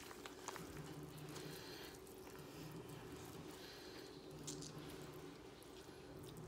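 Faint, soft squishing of raw ground beef being rolled into meatballs by hand, with a low hum in the background.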